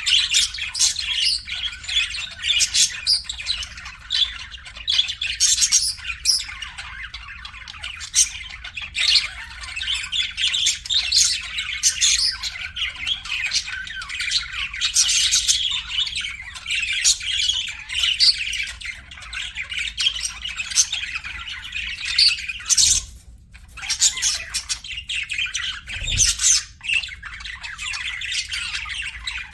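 Several budgerigars chirping and chattering at once in a continuous, overlapping stream of short squawks and warbles, with a brief lull about three-quarters of the way through.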